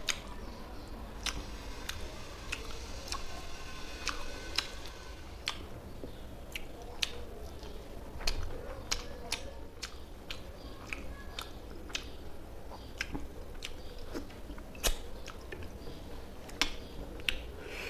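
Fingers mixing rice with wet fish curry on a plate: irregular sharp clicks and soft squishes, with a few louder clicks about eight, fifteen and seventeen seconds in.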